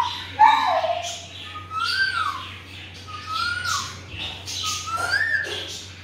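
Alexandrine parakeet giving a short whistled call that rises and then falls, about four times, roughly a second and a half apart, with softer high chirps between.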